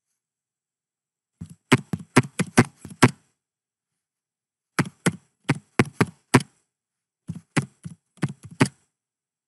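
Computer keyboard keys clacking in three quick runs of typing, each a short word of about six to eight keystrokes, with brief pauses between the runs.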